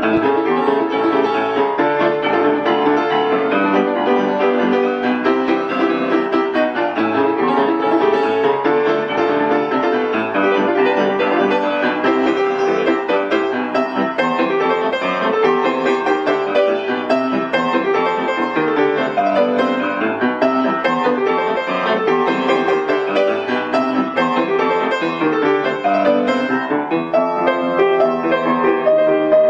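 Music: a tune played on a keyboard, starting abruptly and running on without a break.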